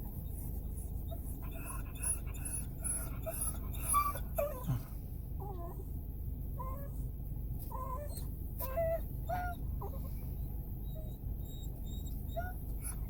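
A dog whining and whimpering in many short, high-pitched cries, some of them sliding in pitch: the anxious, excited crying of a dog that has been whining for the whole trip.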